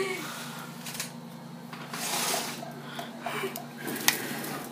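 Low-level handling noise and small clatter at a table, with a short rush of hiss about two seconds in and a sharp click near the end.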